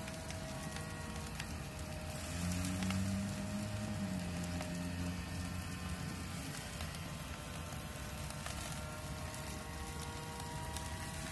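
Skewered meat sizzling and crackling on a gas grill, a steady hiss with faint scattered clicks. A low hum swells for a few seconds about two seconds in.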